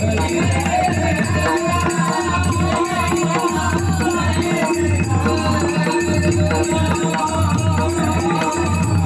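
Marathi devotional bhajan being sung: a solo voice carries a wavering melody over drum strokes and rattling percussion keeping a steady, even rhythm.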